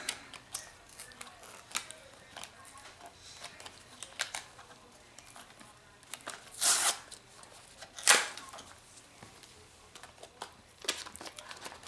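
Charger packaging being handled: scattered light clicks and taps, a brief crinkling rustle about two-thirds of the way through, then a sharp click.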